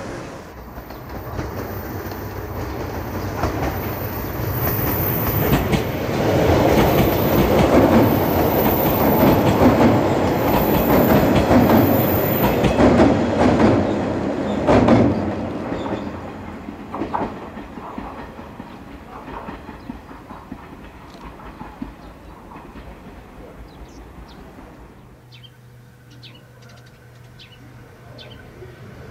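An electric train crossing a girder bridge: a rumble that builds with wheels clicking over rail joints, is loudest for several seconds mid-way, then fades as the train moves off. Near the end, over quiet, a few short high chirps.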